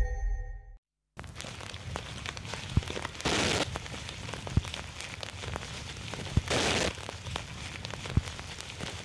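Intro music fades out within the first second and is followed by a brief silence. Then comes a steady crackling hiss with scattered clicks, which swells into a louder burst of hiss about every three seconds.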